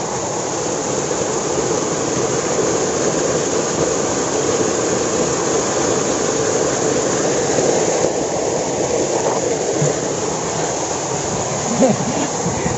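Steady rush of a small waterfall pouring into a rock pool. A few splashes near the end as a swimmer comes up out of the water.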